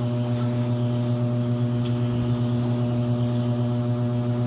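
Steady machine hum at one fixed pitch, running evenly without change.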